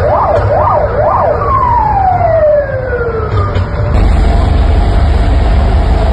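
Emergency vehicle siren in a fast rising-and-falling wail. About a second in it winds down in one long falling tone. About four seconds in, a steady low vehicle-engine rumble with a steady hum takes over.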